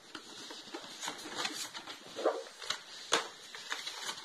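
Plastic and cardboard headphone packaging handled by hand: irregular crinkling and rustling with sharp clicks and knocks as the clear lid is worked off and the headphones are lifted out of their tray, the two loudest clicks a little past halfway.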